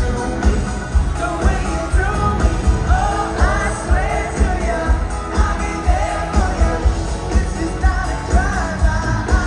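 Live pop-rock band playing with singing, over a steady beat that peaks about twice a second.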